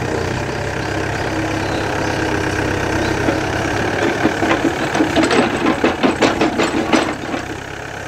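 Yanmar B7 backhoe's diesel engine running steadily as the bucket digs into soil and roots. From about four seconds in, the engine note strains under hydraulic load with a quick run of knocks and cracks for about three seconds, then settles back.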